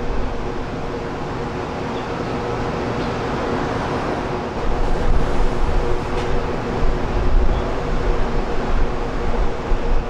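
Jet airliner engines running with a steady hum and a broad rushing noise that swells about halfway through, with wind buffeting the microphone.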